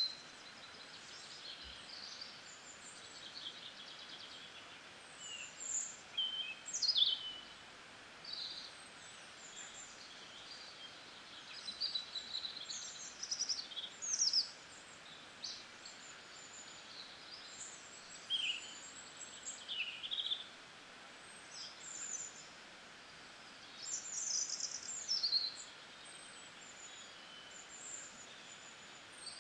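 Small birds chirping and twittering in short, irregular calls over a faint steady hiss.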